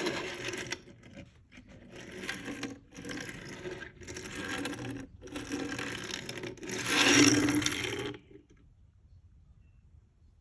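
Pencil scratching across paper in five stretches of a second or two each, with short breaks between; the last is the loudest and stops about eight seconds in.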